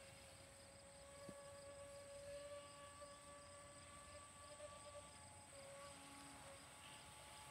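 Faint, steady whine of a distant radio-controlled speedboat's motor, its pitch shifting slightly as the boat runs.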